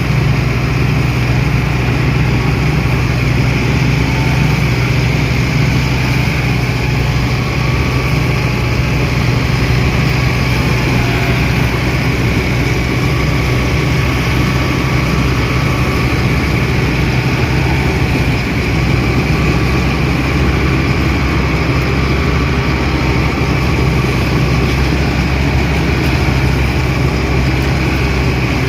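Balkar B 525 tractor-mounted combine harvester running steadily on its Mahindra Arjun Novo 605 tractor: a constant engine drone with a steady high whine from the machinery above it.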